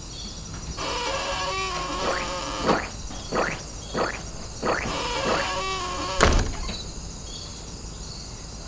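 Cricket chirping, a high chirp repeating every so often, under a run of short tonal sounds with quick falling pitch in the middle, and a single loud thump about six seconds in.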